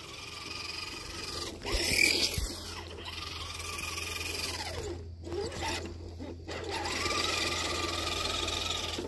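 Toy RC monster truck's motor whining as it drives over grass, its pitch rising and falling as it speeds up and slows, cutting out briefly a couple of times past the middle.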